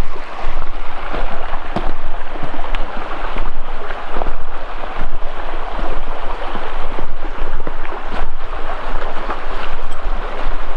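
Loud rushing noise of wind buffeting the microphone over the flow of a shallow rocky creek, rising and falling unevenly, with a few faint knocks about once a second.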